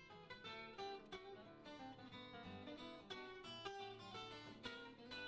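Faint background music: acoustic guitar picking a run of plucked notes.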